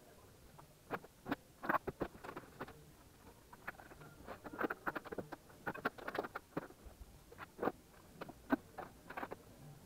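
Scattered quick clicks, knocks and rustles of things being handled: a cardboard box and desk equipment being moved and packed on a wooden desk.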